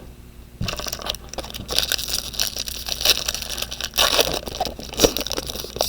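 A baseball card pack's wrapper being torn open and crinkled, with cards sliding and scraping: irregular crackling that starts about half a second in and comes in uneven surges.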